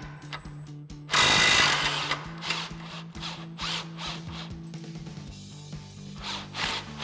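Cordless impact wrench hammering about a second in to break loose an 18 mm sway bar end link bolt, then a string of shorter bursts as it runs the fastener off. Steady background music plays underneath.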